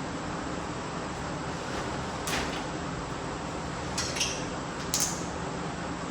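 A few short sharp clicks or knocks, four in all, the last two the loudest, over a steady background hum.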